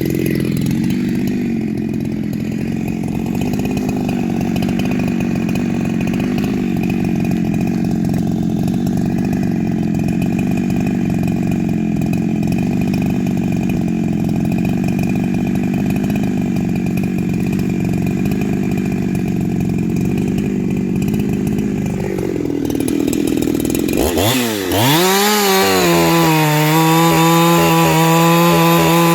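Ported Husqvarna 372XP-clone two-stroke chainsaw running at speed for about twenty seconds, then dropping off briefly. About 24 seconds in it revs up sharply and holds a steady high-rev scream.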